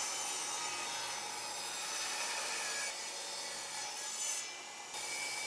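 A saw cutting through a wooden 1x4 board, a steady rasping noise that eases off briefly near the end.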